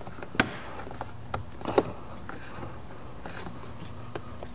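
Plastic tabs of a BMW 3 Series GT door trim strip clicking as the trim is pressed into place on the door panel: a sharp click about half a second in, two more close together near two seconds, and a fainter one near the end, over a faint steady hum.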